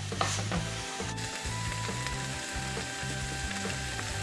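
Chicken strips, onions and bell peppers sizzling as they sauté in a frying pan, with a wooden spoon scraping through them in the first second. Steady background music plays underneath.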